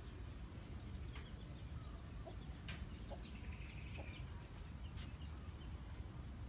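Chickens clucking faintly in a few short calls, over a steady low rumble.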